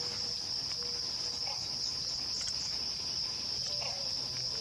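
Steady, unbroken high-pitched insect chorus, a continuous shrill drone.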